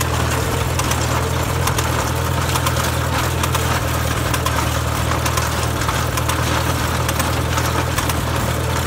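1952 Farmall Super C tractor's four-cylinder engine running steadily in second gear while pulling a working manure spreader, with irregular clicks and rattles from the spreader throwing manure.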